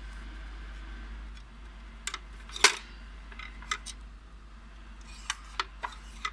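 A string of sharp clicks and knocks from parts being handled, about ten in all, with the loudest one about two and a half seconds in.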